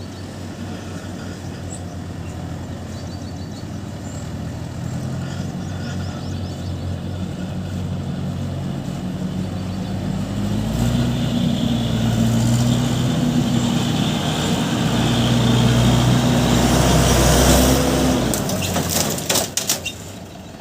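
Diesel engine of a JCB 3DX backhoe loader working, revving up under load about halfway through and holding high for several seconds before dropping back. A brief run of clattering knocks comes near the end.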